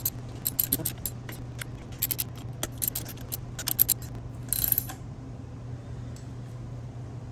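Socket ratchet clicking in quick runs as a 10 mm bolt is turned down into a nylock nut on a steel compressor bracket, with a short rasp about four and a half seconds in. A steady low hum sits underneath.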